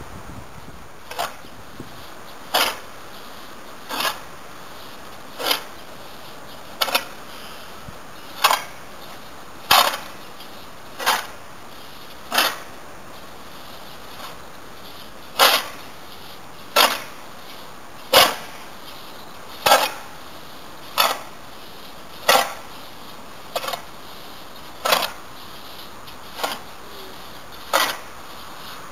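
Shovel scooping and scraping through a pile of dry, loose oyster-mushroom substrate, one stroke about every second and a half.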